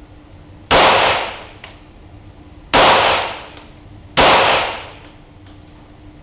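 Three shots from a Feinwerkbau AW93 .22LR competition pistol firing CCI Standard 40-grain lead round-nose ammunition, about two seconds and then a second and a half apart. Each crack is followed by an echoing tail of about a second.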